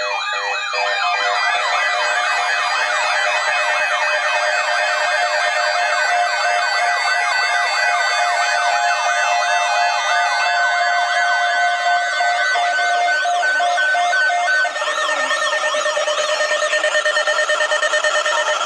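Several weather alert radios alarming at once for incoming warnings: steady tones overlap with warbling, siren-like sweeps. One set of steady tones cuts off about fifteen seconds in while the warbling goes on.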